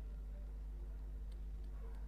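A steady low hum, with two faint ticks of a small flat screwdriver blade on a copper switch contact strip about a second and a half in.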